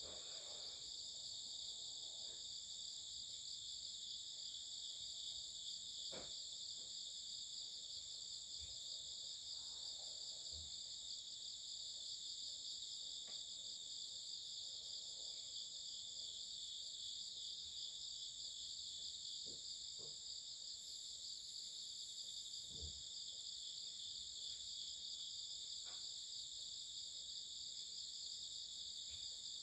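Chorus of singing insects: several steady, high-pitched trills at different pitches overlap without a break, one of them finely pulsing. A few faint knocks sound now and then.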